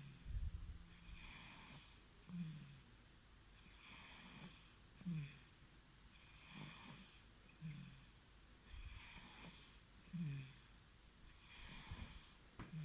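Baby snoring in sleep: about five even breaths, roughly one every two and a half seconds. Each is a soft hissing breath followed by a short, low snore that falls in pitch.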